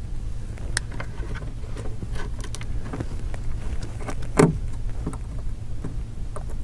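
Light scattered clicks and ticks of a small Phillips screwdriver turning out and lifting the tiny screws of an iPhone 5's internal metal plate, with one louder knock about four and a half seconds in. A steady low hum runs underneath.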